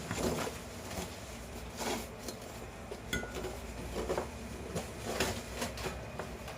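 Light clinks and knocks of hard air-conditioner parts and tools being handled and set down, about a dozen irregular impacts, some with a brief ring.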